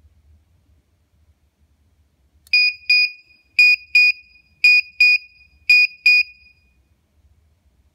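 Electronic buzzer on an amplifier speaker-protection board sounding its short-circuit fault alarm: four double beeps of one high tone, each pair about a second apart, starting a couple of seconds in.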